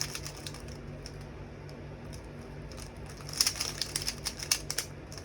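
Plastic Rubik's Cube layers being turned by hand: scattered clicks, then a quick run of clacking turns about three seconds in, over a faint steady hum.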